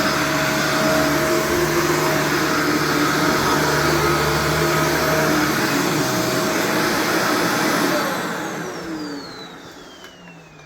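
Shark Vertex upright vacuum running steadily on carpet, then switched off about eight seconds in, its motor whine falling as it spins down. A sharp click near the end.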